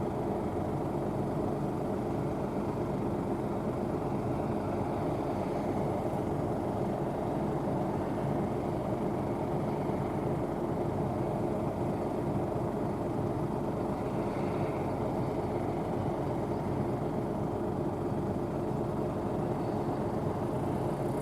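Rostselmash NIVA SK-5 M1 combine harvester running steadily while harvesting barley, a constant, unchanging machine hum.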